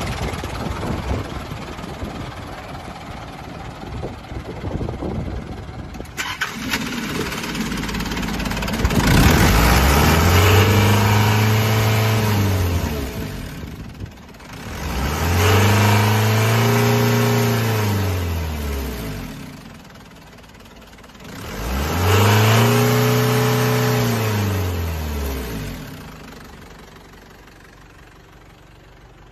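Mitsubishi 4D35 four-cylinder diesel engine idling, then revved up and let back down to idle three times, each rev climbing and falling over four to five seconds.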